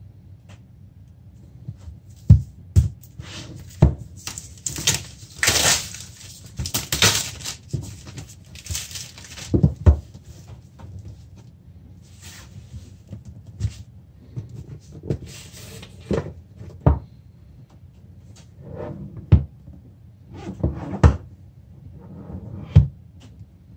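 Cardboard retail headphone box being unwrapped and handled on a tabletop: its plastic shrink-wrap is crinkled and torn off, mostly from about four to ten seconds in, among repeated knocks and thuds as the box and its inner box are set down and turned over.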